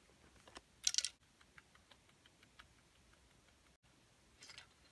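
Small trinkets clicking and rattling inside a metal tin as a Siamese cat noses through it: a short burst of clatter about a second in, a few light ticks after it, and another brief rattle near the end.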